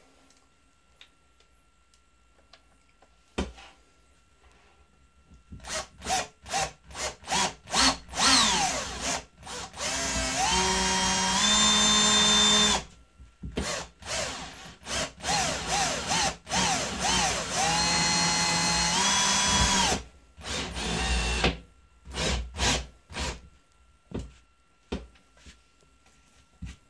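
Cordless drill-driver run in short trigger blips, then two runs of a few seconds each in which the motor's whine steps up in pitch and holds. More short blips follow each run.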